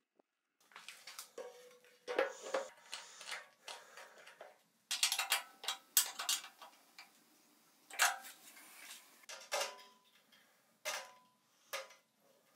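Metal parts clinking and clanking: irregular sharp knocks and clicks, several of them ringing briefly, with the loudest clatter about two, five to six and eight seconds in.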